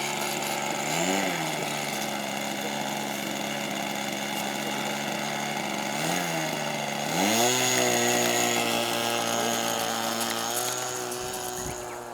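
Small two-stroke engine of an RC model airplane running steadily. Its pitch rises and falls briefly twice, then climbs to a higher steady pitch about seven seconds in, drops a little near eleven seconds, and fades away at the end.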